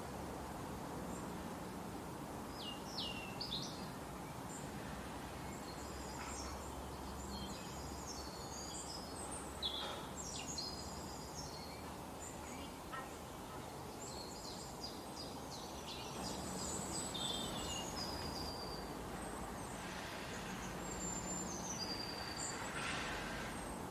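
Several small birds chirping and calling in quick, short high-pitched notes over a steady outdoor background hiss.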